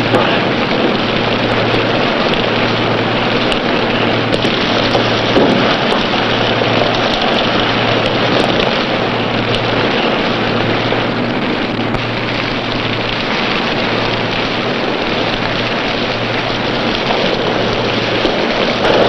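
Heavy rain and wind of a squall at sea, a loud, even hiss, with a low hum beneath it that pulses on and off about once a second.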